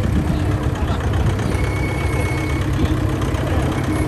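Off-road vehicle engine running steadily at low revs, a continuous low rumble.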